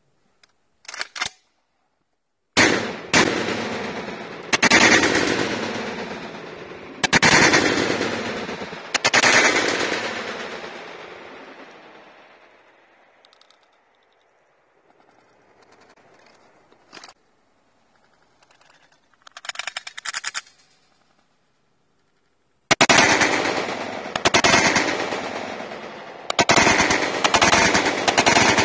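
Gunfire: five shots from an AR-style semi-automatic long gun, each dying away slowly over a couple of seconds, then some light mechanical clicking. Then comes a quick string of shots from a Canik TP9 9mm pistol.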